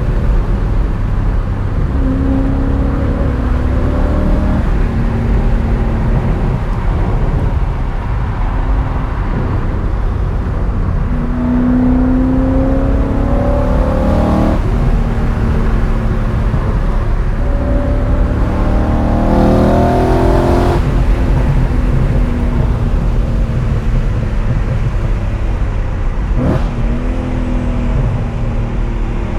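BMW E39 M5's 4.9-litre S62 V8 driven hard, its engine note climbing with the revs and dropping off sharply at two gear changes, over a steady low exhaust and road drone. A single sharp click comes about three-quarters of the way through.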